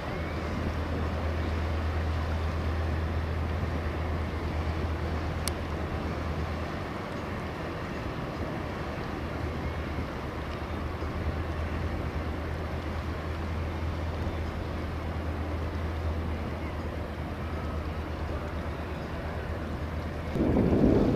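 Steady low drone of a passing workboat's diesel engines over wind and water wash, fading as the vessel moves away. Near the end a louder rushing noise comes in.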